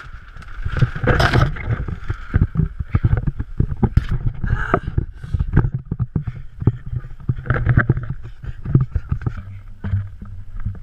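Irregular thumps and knocks from a body-worn action camera jostling as its wearer runs, with low wind rumble on the microphone.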